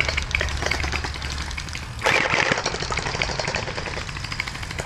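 Gel blasters firing on full auto: a fast rattle of sharp shots with the blasters' motors running, with a louder burst of noise about two seconds in.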